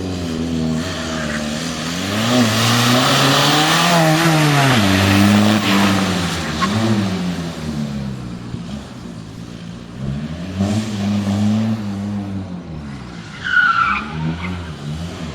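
VW Golf Mk1's 1.9 TDI diesel engine driven hard, its pitch rising and falling again and again through acceleration, braking and gear changes, with tyres skidding. About fourteen seconds in, a short high tyre squeal is the loudest sound.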